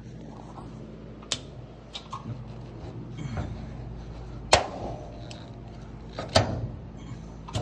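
Resistance spot welder joining a car floor pan's pinch-weld flange: a string of sharp clacks a second or two apart, the loudest about four and a half and six and a half seconds in, over a steady low hum.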